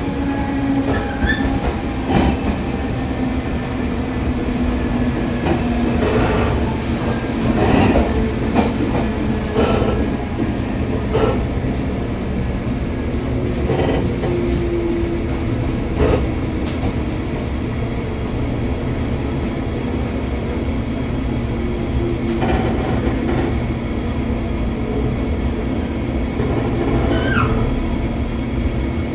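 Running noise of a Taiwan Railway E500 electric locomotive's push-pull Tze-Chiang train as it brakes toward a stop. There are scattered clicks over rail joints, and in the second half the steady stepped tones of the Toshiba IGBT inverter under electric braking.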